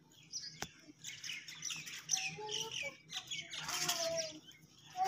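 Birds chirping and squawking: a quick run of short, falling chirps, then a louder, harsher call a little before the end.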